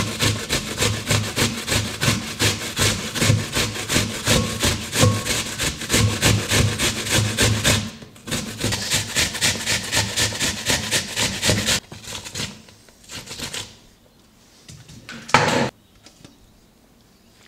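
Apple being grated by hand on a grater: fast, even, rhythmic rasping strokes that pause briefly about eight seconds in and stop about twelve seconds in. A few scattered scrapes follow, then one short, louder rasp near the end.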